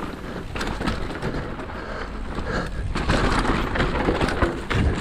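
Mountain bike rolling fast over a rough dirt trail: tyres crunching on loose stones and dirt, with frequent sharp knocks and rattles from the frame and chain as it hits bumps, over a low rumble of wind on the microphone.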